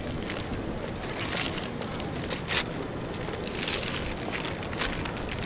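Paper food wrapping crinkling and rustling in short bursts as it is unwrapped by hand, with one sharper crackle about two and a half seconds in, over a steady low rumble.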